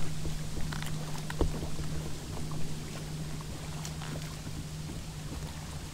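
A boat's engine droning steadily at one low pitch, fading near the end, with scattered small clicks and splashes over it.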